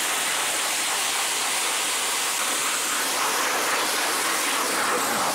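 Jet engine running steadily at full power, an even rushing noise with a lot of hiss and no break in it.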